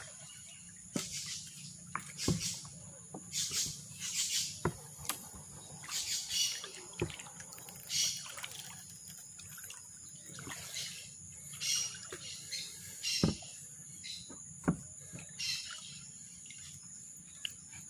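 Gillnet being hauled and sorted over the side of a wooden canoe: irregular water splashes and drips, with scattered light knocks against the hull.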